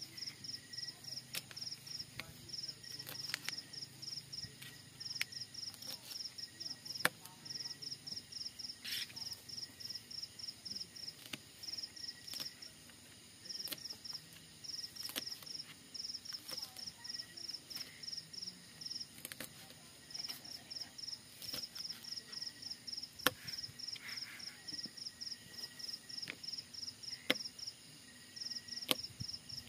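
Kitchen knife slicing chili peppers on a plastic cutting board: sharp taps of the blade every second or so. Under it an insect chirps steadily in rapid high pulses.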